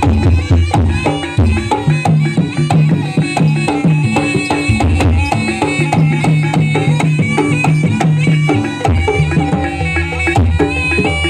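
Live Javanese dance-troupe accompaniment of the gamelan kind: busy hand-drum (kendang) patterns with struck metal keys and gongs, under a sustained, wavering high melody line.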